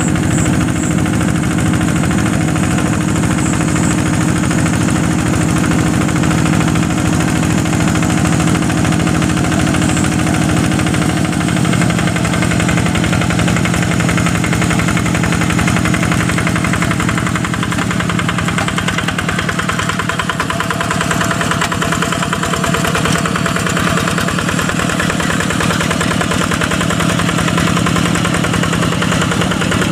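Yanmar single-cylinder diesel engine of a two-wheel hand tractor chugging steadily under load as it drags a moldboard plough through soft, wet paddy soil. Its note shifts slightly about twelve seconds in.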